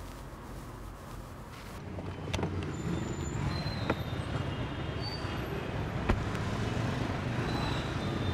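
City street traffic, with motorbike and car engines running by. It grows louder about two seconds in, and a few short sharp knocks sound through it.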